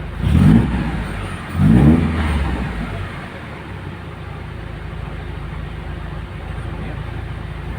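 Mitsubishi Galant GTI's 4G63 inline-four engine running: it is revved briefly twice near the start, rising and falling each time, then it settles into a steady idle.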